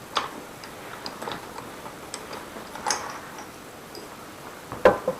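Scattered light clicks and taps as a bicycle bottom bracket cartridge is handled, with a sharper knock near the end.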